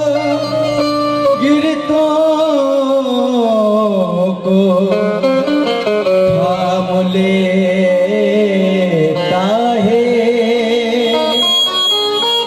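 Qawwali singing: a male voice holds a long, wavering melismatic line over harmonium, the melody sinking lower a few seconds in. Near the end the voice drops away and the harmonium plays on.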